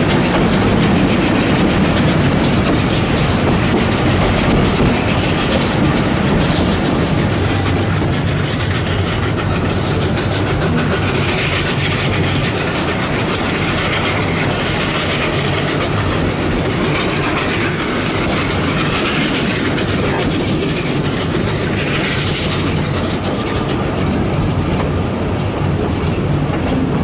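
Narrow-gauge steam train running steadily, heard from a carriage: a constant loud rumble of wheels on the rails.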